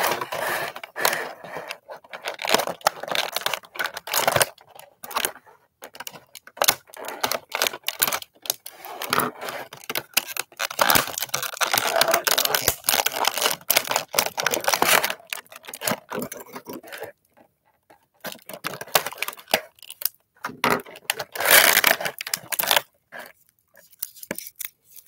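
Stiff clear plastic blister packaging crackling and crinkling as it is handled and pried open, in irregular bursts with a brief lull about two-thirds of the way through.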